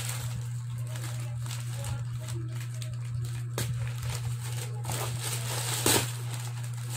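Plastic courier packaging crinkling and rustling in irregular bursts as it is handled and opened, with one sharper crackle a little before the end.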